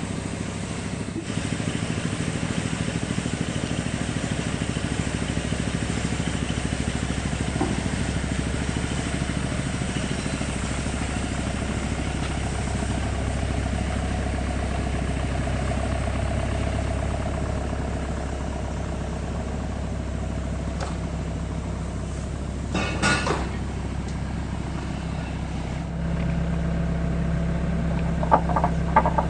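Hitachi ZAXIS 70 excavator's diesel engine running steadily, its note shifting near the end. A short burst of knocking comes about 23 seconds in, then a few sharp knocks at the very end.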